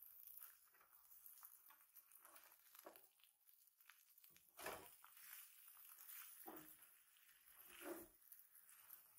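Near silence: faint room tone with a few soft, short noises.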